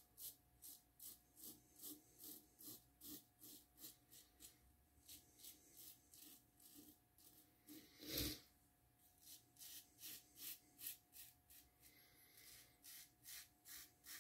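Assured double-edge safety razor scraping through lathered stubble in quick short strokes, about two or three a second, with one louder thump about eight seconds in.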